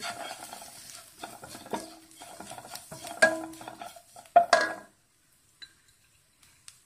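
Wooden slotted spatula stirring and scraping onions and spice powders around a nonstick kadai, with a few sharp knocks against the pan, the loudest about four and a half seconds in. The stirring then stops, leaving only a couple of faint ticks.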